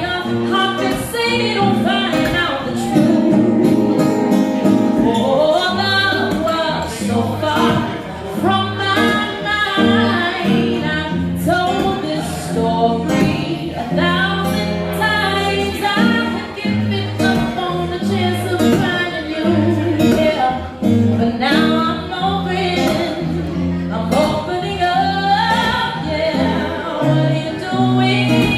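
A woman singing into a microphone, accompanied by a strummed acoustic guitar, in a live acoustic duo performance.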